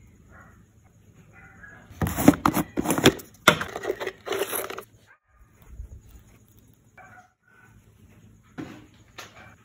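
A plastic jar of wafer sticks being handled and opened by its red plastic lid: about three seconds of loud rattling and clicking, followed by a few faint taps near the end.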